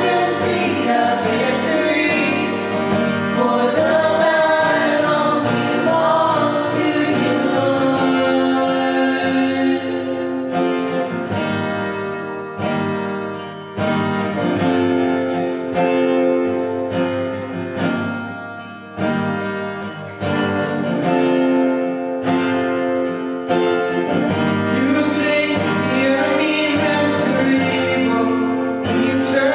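Worship song with a group of voices singing over guitar, at a steady loud level.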